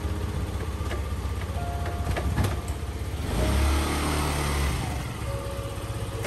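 Motor scooter's small engine idling with a rapid, steady low putter, rising briefly in a short rev a little after three seconds in, then settling back to idle.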